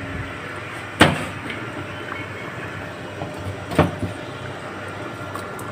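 Two sharp metallic knocks of a steel bowl against the cooking pot and stovetop, the louder about a second in and another near four seconds, while coriander is added to the salan. A steady hiss runs underneath.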